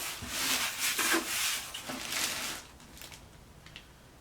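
Rubbing and scraping handling noise, like a hand or fabric moving against the computer or the microphone, for about two and a half seconds, then dropping away to a few faint clicks.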